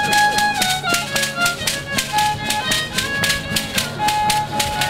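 Rarámuri folk music: a handmade wooden violin bowing a melody of held notes over a strummed acoustic guitar keeping a steady rhythm.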